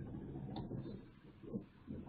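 Faint computer mouse click as the on-screen field is cleared, followed by two soft low knocks at the desk over quiet room noise.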